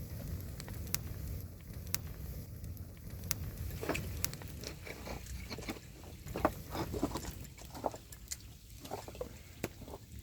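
Large wood campfire crackling, with irregular sharp pops and snaps that come thicker from about halfway through, over a steady low rumble.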